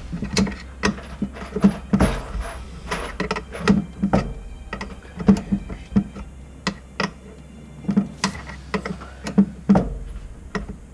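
Irregular clicks, clinks and knocks of small metal tools and bits being handled and rummaged through in a tool box compartment.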